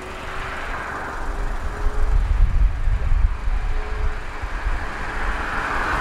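Wind buffeting an outdoor microphone: an uneven, gusty low rumble, strongest about two to three and a half seconds in, over a faint hiss.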